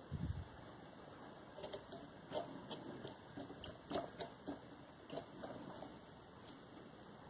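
Short scratchy strokes of a velcro-wrapped pen brushing out the fibres of a fly held in a tying vise, irregular, two or three a second from about a second and a half in. A low bump comes right at the start.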